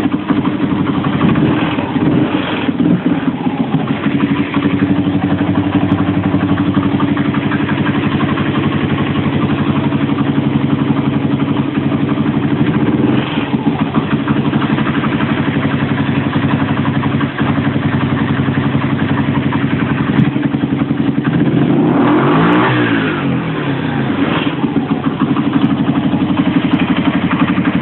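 Small 50 cc two-wheeler engine idling steadily, revved up and back down once about 22 seconds in.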